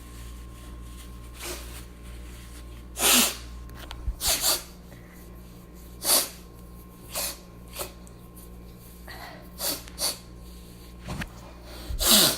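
A person blowing their nose: a series of about ten short, forceful blasts at irregular gaps, some weak and some strong, the loudest a few seconds in and near the end.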